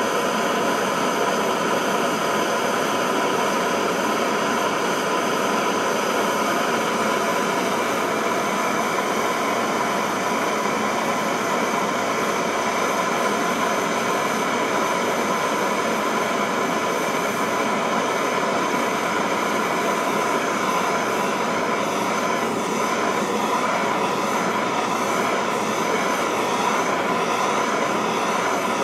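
Gas torch flame burning with a steady hiss, heating a gun frame and its filler pieces for silver soldering.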